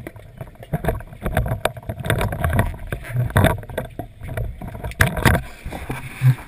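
Water sloshing and splashing, with irregular knocks and clicks over a low rumble.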